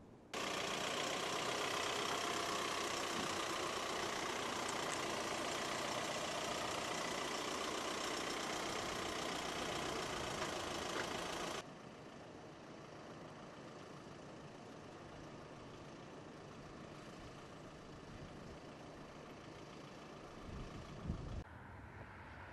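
Steady engine-like mechanical noise, loud for about the first eleven seconds, then cutting off abruptly to a quieter, steady background noise.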